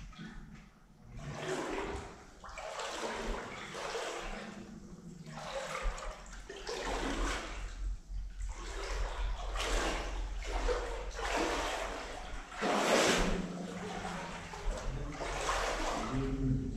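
Footsteps wading through shallow floodwater on a concrete floor: a slosh and splash with each step, about one stride every second or so.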